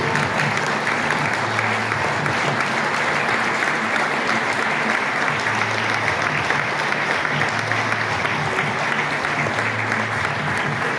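Audience applauding steadily, many hands clapping at once at an even level.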